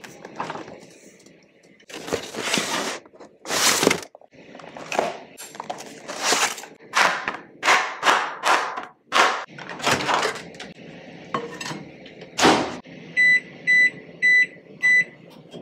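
Plastic film on a ready-meal tray being slit and peeled with a knife, a run of crinkling, tearing strokes. Near the end come four short beeps, about half a second apart, from a microwave oven's keypad as its buttons are pressed.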